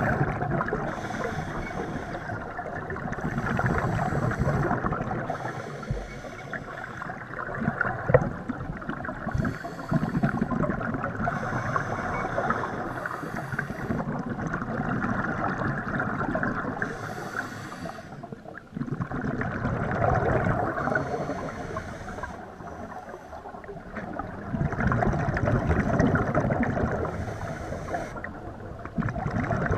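Scuba diver breathing through a regulator, heard underwater: a hiss on each inhale and a gurgling rush of exhaled bubbles, repeating in slow cycles every few seconds.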